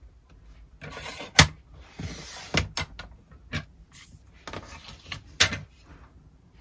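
Small objects being handled on a work surface: two short stretches of sliding, rustling noise, each ending in a sharp snap or click, with a few lighter clicks in between.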